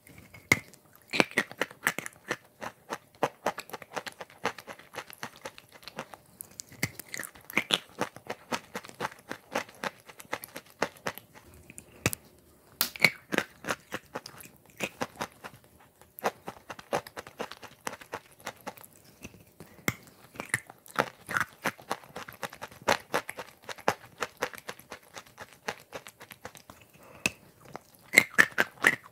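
Close-miked biting and chewing of chalk chunks set in a wet clay paste: a steady stream of crisp crunches and clicks, with several louder bites along the way.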